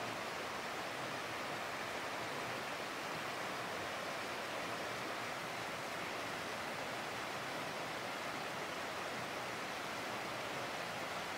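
Small forest stream running steadily over rocks, an even rush of water.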